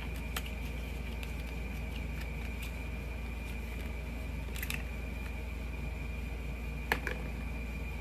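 A few light clicks and taps from a liquid blush and its packaging being handled, the sharpest near the end. Underneath runs a steady background hum with a thin high whine.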